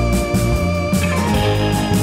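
Background music with guitar over a bass line and a steady beat.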